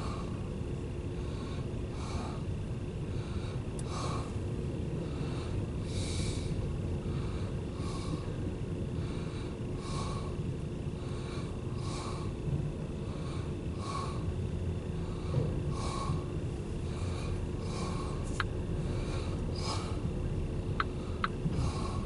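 Empty autorack freight cars rolling past, heard from inside a car: a steady low rumble with a regular clack about every two seconds as the wheels pass.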